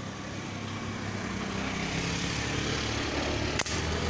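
A motor vehicle's engine running steadily and growing louder, as if coming closer, with one sharp click about three and a half seconds in.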